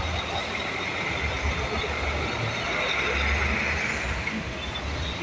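Heavy diesel trucks passing close by in slow traffic: a steady low engine rumble that swells and fades, with tyre and road noise.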